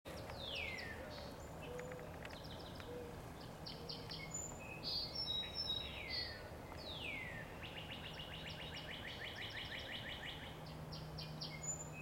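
Woodland songbirds singing: several quick notes that slur down in pitch, and about seven seconds in a fast trill of repeated notes lasting a couple of seconds, over a faint steady low hum.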